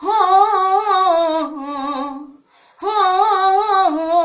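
A young woman singing unaccompanied, holding long ornamented notes that waver and glide in pitch, in two phrases with a short breath between them about two and a half seconds in.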